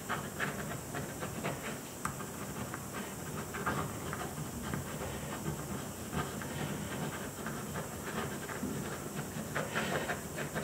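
Pen scratching across drawing paper laid on an inked plexiglass sheet, in quick, irregular scribbling strokes, over a steady hiss.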